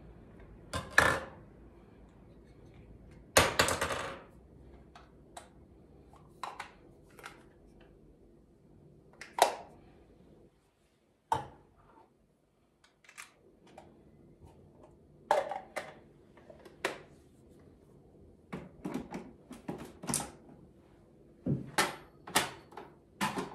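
Irregular plastic clicks and knocks from a small dark plastic kitchen-appliance part being handled and set down on a stone countertop, with a short rattle about three seconds in and a quiet stretch around the middle.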